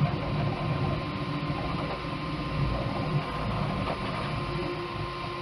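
Bambu Lab P1S 3D printer running mid-print: a steady mechanical hum with a faint steady tone.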